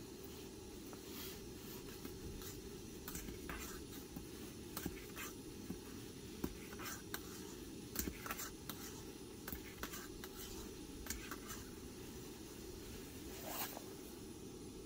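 Faint small scratchy handling sounds, then a teaspoon stirring and scraping in a stainless-steel camping mug with a few light clicks, over a steady low hum.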